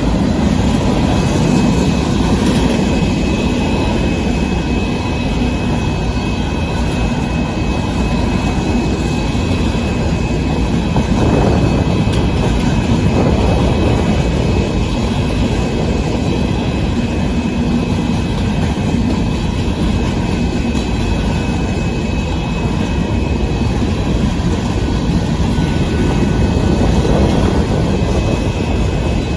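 Union Pacific freight train's hopper cars rolling past, a loud, steady rumble with a faint thin high tone running through it.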